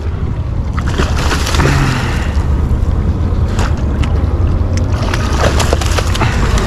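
A hooked salmon splashing at the surface beside the boat and a landing net dipping in to scoop it, the splashes crackling more often and harder over the last few seconds. Underneath runs a steady low rumble of wind on the microphone.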